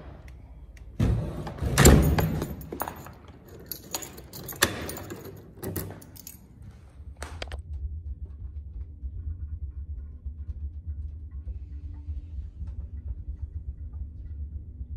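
A few seconds of clattering and sharp knocks, then an old passenger elevator running: a steady low hum as the car travels in its shaft.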